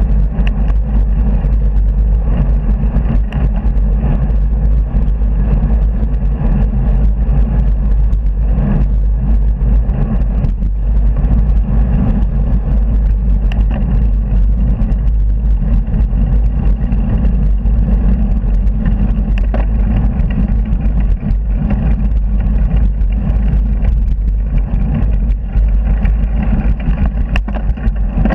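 Steady low rumble of wind buffeting the microphone of a handlebar-mounted camera on a moving bicycle, mixed with the noise of cars and lorries passing at speed on a dual carriageway.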